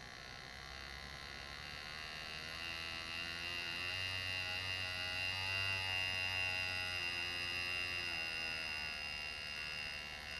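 Lindsay PalmControl AirGraver, a pneumatic engraving handpiece, buzzing steadily as its graver cuts shading into a metal plate. The buzz grows louder through the first half and eases off near the end.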